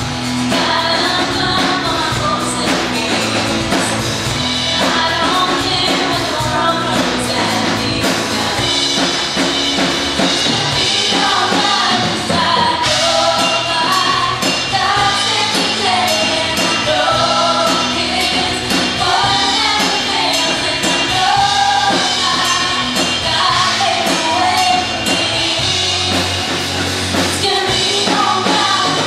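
Live rock-style worship band playing and singing: drum kit, electric and acoustic guitars and bass under lead vocals singing the song's lyrics.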